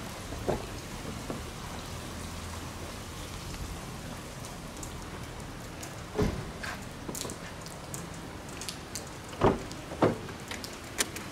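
Steady rain falling, an even hiss, broken by a few sharp knocks and thumps about six seconds in and twice more near the end.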